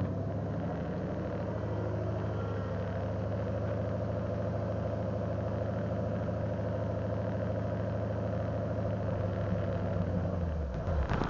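Car engine idling steadily, then switched off near the end, its note sinking away as it stops.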